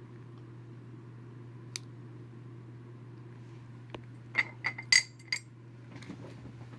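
Small figurines clinking against one another and the tabletop as they are picked through: a faint tap about two seconds in, then a quick run of sharp, ringing clinks a little past the middle. A steady low hum underneath.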